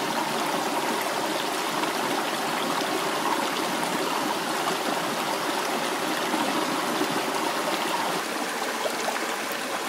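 Shallow rocky brook running steadily over stones.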